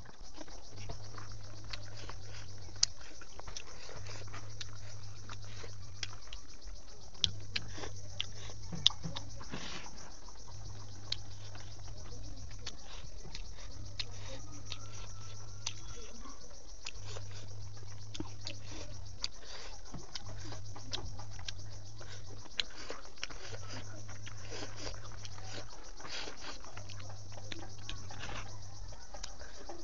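Close-miked chewing and wet mouth clicks and smacks from eating chewy pork intestines and rice by hand, with a few sharper clicks in the first ten seconds. Under it a low hum switches on and off at a steady pace, about every three seconds.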